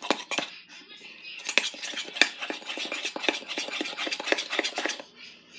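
Metal spoon clinking and scraping against the inside of a ceramic mug as mug-cake batter is stirred, in quick, rapid strokes. It eases off briefly about half a second in, then clinks steadily again until it stops near the end.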